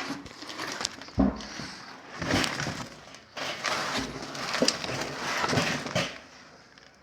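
Heavy metal truck brake parts being handled: a sharp knock about a second in, then several irregular bursts of scraping and clattering.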